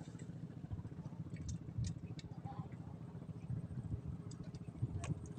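A motor running with a low, rapid, even chugging, with a few short sharp clicks over it.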